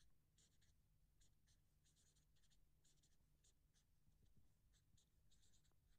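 Faint scratching of writing on a surface in short, irregular strokes, over near silence.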